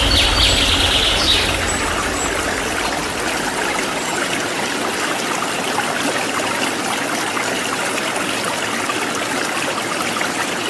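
Waterfall: steady rushing of falling water. A brief high-pitched sound rises over it in the first second or so.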